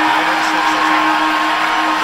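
Arena crowd cheering and whooping, with one steady held note from the stage sound system underneath.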